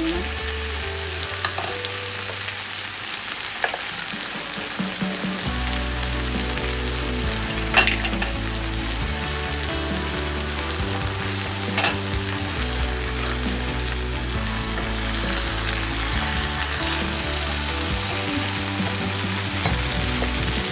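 Tandoori-marinated chicken pieces sizzling in hot oil in a frying pan, a steady frying hiss. Two sharp clicks stand out, about eight and twelve seconds in.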